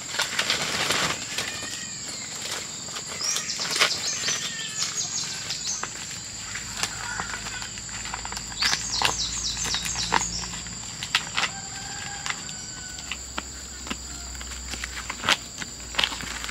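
Insects droning steadily at a high pitch outdoors, with scattered rustles and clicks and a few quick runs of short high chirps.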